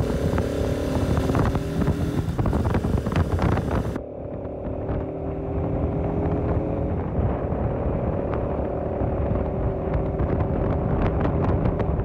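Bajaj Pulsar RS200's single-cylinder engine running steadily at cruising speed, heard from the saddle, with wind noise on the microphone. The sound changes abruptly about four seconds in, the high hiss dropping away.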